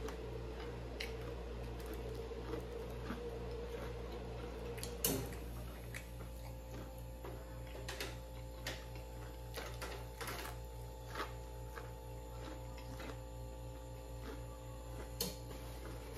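Eating sounds: a man chewing crispy deep-fried seafood and handling pieces on a metal sheet pan, with scattered clicks and taps. The loudest is a sharp knock about five seconds in. A steady low hum runs underneath.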